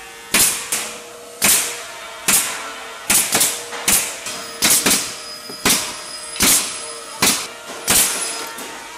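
Rig-mounted pneumatic coil nailers firing, driving nails into the boards of a wooden cable-drum flange: about a dozen sharp shots, irregularly spaced and some in quick pairs, over a steady machine hum.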